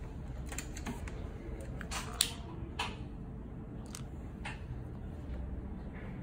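Light clicks and taps from hands working a pair of thin wires and a soldering iron, about six in all with the sharpest a little over two seconds in, over a steady low background rumble.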